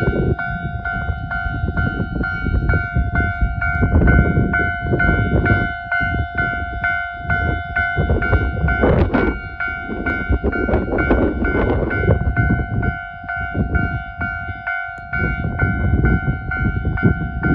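Japanese level-crossing alarm ringing its steady electronic two-tone bell, over the low rumble of a two-car KiHa 40 diesel train passing and blizzard wind. The rumble swells and dips throughout, with a brighter burst near the middle.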